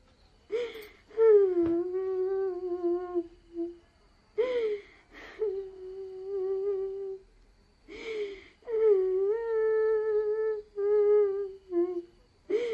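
A woman's voice humming a slow, mournful tune in long held notes, in three phrases, each begun with a sharp breath.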